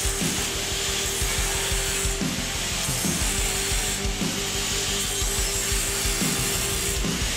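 Angle grinder with a cutting wheel cutting into a steel saw blade: a steady motor whine over a harsh grinding hiss. The pitch dips briefly several times.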